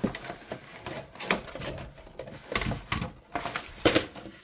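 Rigid clear plastic packaging and a cardboard insert being handled: rustling and crinkling with scattered light plastic knocks and clicks, the sharpest a little before the end, as a polymer holster is lifted out of its clamshell tray.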